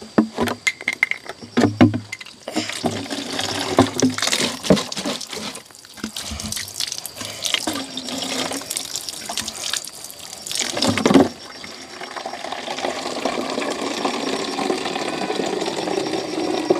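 Running water splashing as water containers are rinsed out, with scattered knocks of the containers. About two-thirds of the way in it settles into a steadier flow.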